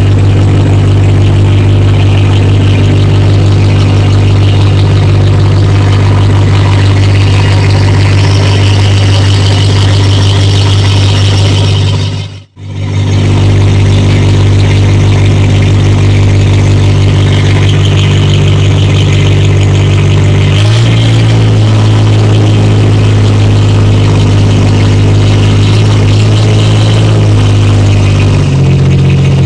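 Motor boat's engine running steadily under way, a loud low drone that breaks off for a moment about twelve seconds in, then rises slightly in pitch about twenty seconds in and again near the end.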